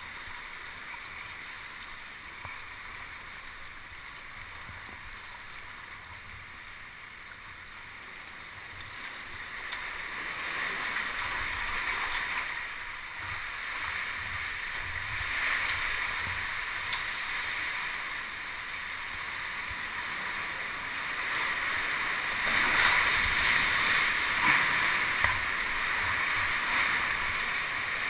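Sea water rushing and washing around a kayak: a steady wash that grows louder from about ten seconds in and is loudest in the last few seconds.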